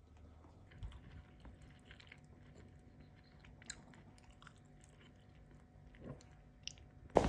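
Quiet eating sounds: soft chewing and biting, with faint light clicks of chopsticks on ceramic dishes. Right at the end the sound jumps suddenly much louder.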